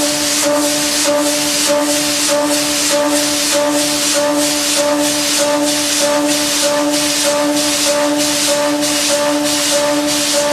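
Background music with a steady shaker-like beat, about three a second, over held tones.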